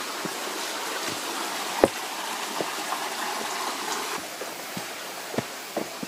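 Small rocky stream running over stones, a steady rush of water that drops away about four seconds in. Scattered footsteps on the trail, with one sharper knock about two seconds in.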